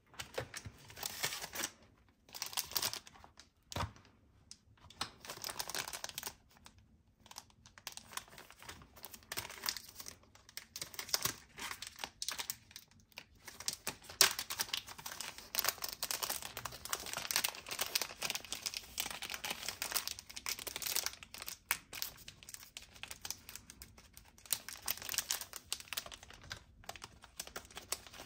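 Close-up unpacking sounds: plastic packaging crinkling and rustling in irregular bursts, mixed with quick clicks and taps, with a few short pauses.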